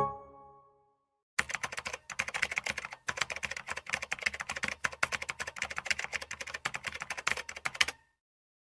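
Rapid typing on a computer keyboard, a fast, uneven run of key clicks that starts about a second and a half in and stops shortly before the end. At the very start the ringing tail of a chime dies away.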